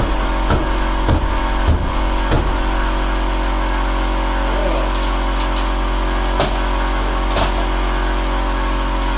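Air compressor running without pause, still pumping when it should already have shut off, which the owner takes as a sign it isn't doing too good. Several sharp knocks come over it, four in the first couple of seconds and two more later.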